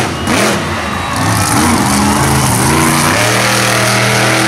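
Monster truck engine revving, the pitch dipping and climbing, then held steady at high revs for about the last second.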